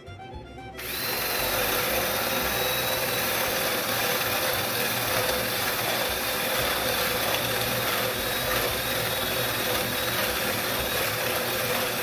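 Power drill boring through a wooden wall, starting about a second in and running steadily under load with a thin motor whine.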